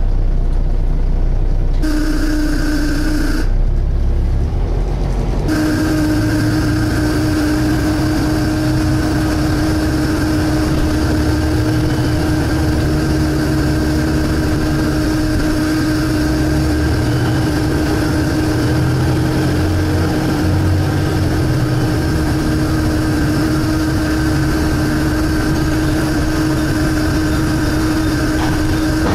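Volvo B7TL double-decker bus engine running, heard from inside the bus, with a steady high whine over the engine rumble; the whine drops out twice in the first few seconds, then holds.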